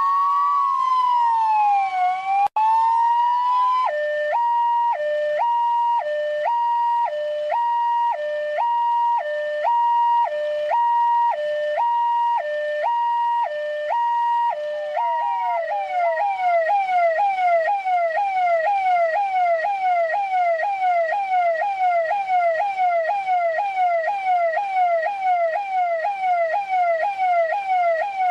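Electronic police siren of the kind used by Indian and Pakistani police, stepping through its modes. It begins with a slow rising and falling wail that cuts out for an instant about two and a half seconds in. About four seconds in it switches to a hi-lo two-tone that alternates about once a second. From about fifteen seconds on it runs as a fast yelp of about three quick falling sweeps a second.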